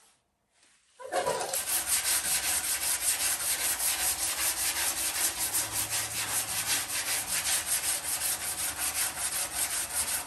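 Hand sanding of the primed sheet-metal door jamb and rocker on a Chevrolet C10 truck cab, a sanding pad rubbed back and forth in quick, even strokes. It starts about a second in.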